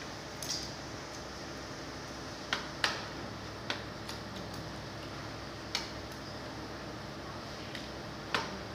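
Steady machine hum with about half a dozen sharp clicks and taps, scattered, as plastic bag film and tube pieces are handled and laid into the die of a high-frequency plastic welding machine.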